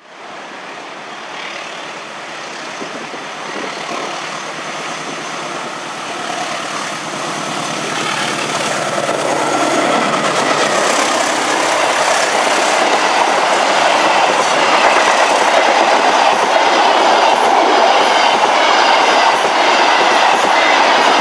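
KA Bangunkarta, a locomotive-hauled passenger train, passing close at speed. A tone falls in pitch about halfway through as the front goes by. Then the coaches' wheels clatter rhythmically over the rail joints, growing louder.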